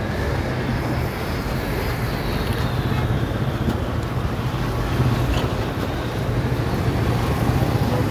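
Steady road traffic noise from cars and motorbikes passing on a wet road, with wind rumbling on the phone's microphone.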